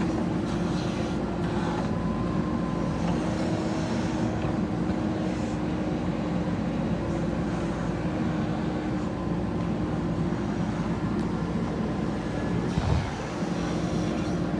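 Heavy diesel engine of earth-moving machinery running steadily, with a single low thump about 13 seconds in.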